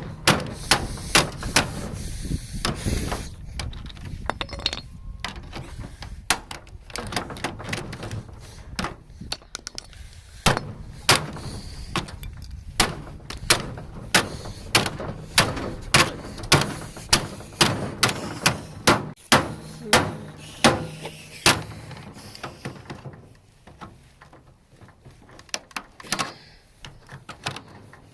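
A microwave oven being struck over and over and broken apart: sharp impacts, many in a regular run at about one to two blows a second, with a short pause near the end.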